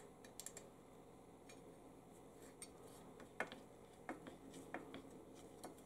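Faint, scattered small metal clicks as a nut and washer are threaded by hand onto a bolt through the saw's steel housing tube.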